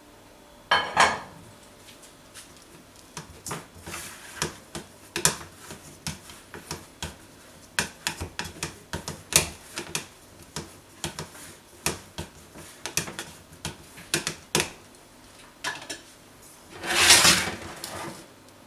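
Plastic rice paddle tapping and scraping against a ceramic bowl as fried rice is pressed and packed into it: a string of light, uneven clicks, with two louder, longer scrapes, one about a second in and one near the end.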